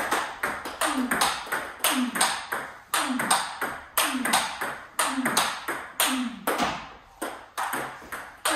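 Table tennis rally: the ball clicking off the rackets and the table in a fast, even rhythm, about four or five hits a second.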